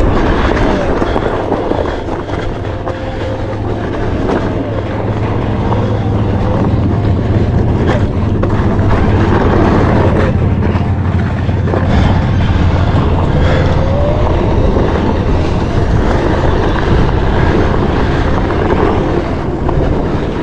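Onewheel electric board riding fast on a dirt trail: a loud, steady low rumble of wind and the tyre on the ground, with the hub motor's faint whine rising and falling in pitch as the speed changes.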